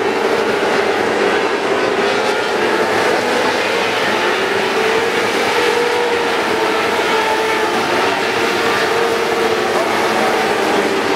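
Several winged sprint cars racing around a dirt oval, their engines droning together in a steady, dense mix whose pitch wavers up and down as the cars circle.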